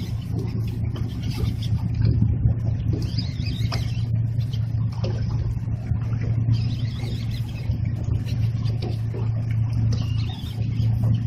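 Boat engine idling with a steady low drone, with a few faint clicks over it.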